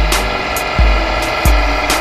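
Background music with a steady, driving beat: a deep kick drum about every three-quarters of a second, with cymbal ticks and sustained synth tones.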